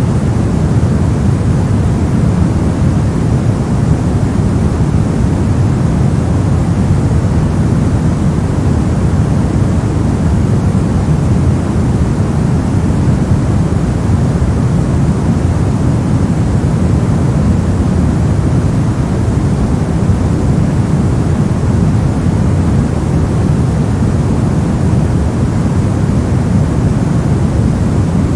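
Steady generated noise of the kind sold as white noise for sleep, an even rumbling hiss weighted toward the low end, unchanging throughout.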